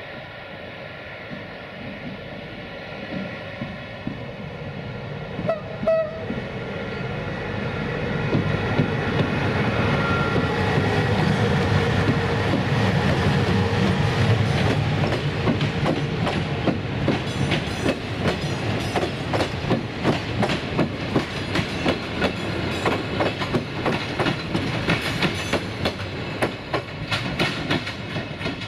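Romanian 060-EA electric locomotive hauling double-deck passenger coaches past. The running noise builds as the train nears, then the wheels clatter over rail joints and points in a quick, rhythmic clickety-clack as the coaches go by. There is a brief high tone about six seconds in.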